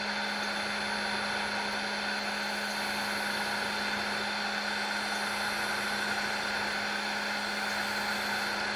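Shop machinery running steadily: an even motor hum with fixed tones and a constant hiss, unchanging throughout.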